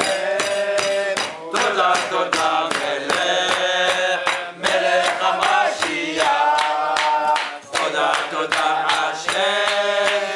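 A group of men singing a Hasidic tune together in unison, with steady rhythmic clapping or table-banging keeping the beat.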